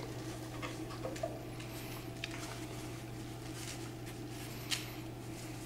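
Faint rustling and light handling noises of a blood pressure cuff being picked up and arranged, with a small tap near the end, over a steady low room hum.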